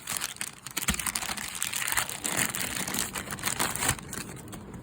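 Hands handling crinkly material, rustling and crinkling with many small irregular clicks.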